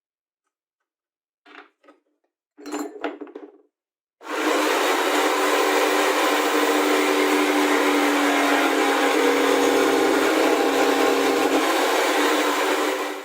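A few short handling knocks, then an electric power tool starts about four seconds in and runs steadily at full speed.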